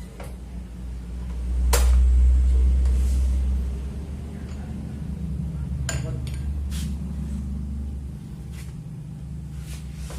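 A steady low hum that swells for a couple of seconds about two seconds in, with a few sharp clicks and taps scattered over it.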